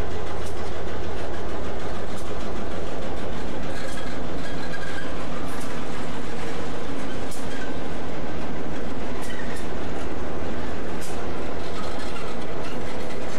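Diesel-electric locomotives, tagged as EMD SD38s, rolling slowly past at close range with the engine running in a steady low hum. Wheels click over rail joints about every two seconds, with a faint wheel squeal.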